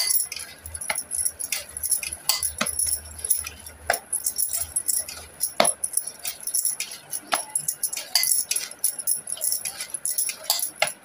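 Bangles jingling and clicking against each other in quick, irregular strokes as a hand kneads rice-flour dough in a steel plate, with a few sharper clinks.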